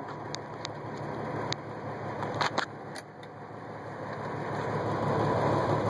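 Semi truck's diesel engine working hard under load as it drags a tanker trailer through a muddy field, growing louder over the second half. A few sharp clicks sound in the first few seconds.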